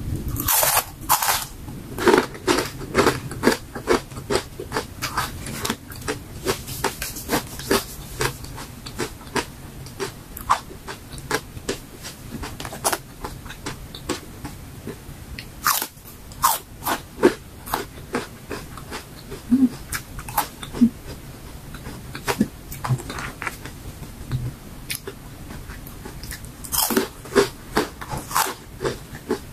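Crunching and chewing of crispy fruit and vegetable chips: bursts of crisp crunches as pieces are bitten and chewed, thickest near the start and again near the end, with quieter chewing between bites.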